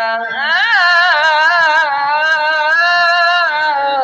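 A man reciting the Qur'an in melodic tajweed style, drawing out the word "wan-nahar" in one long ornamented note. The note leaps up in pitch just under a second in, wavers, and ends shortly before the close.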